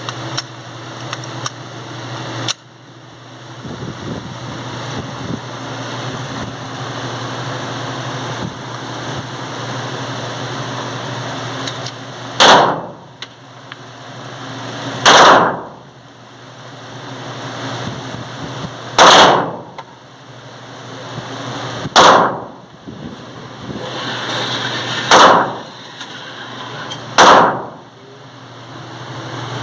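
Glock 17 Gen 5 9mm pistol fired six times, single shots two to four seconds apart, with a short echo after each. A steady low hum runs underneath.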